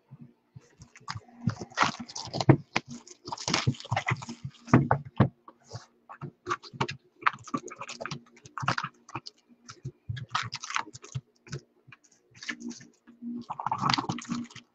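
2019 Topps baseball card packs and cards being handled as they are opened: irregular clicks and crinkling, rustling bursts of wrapper and card stock throughout.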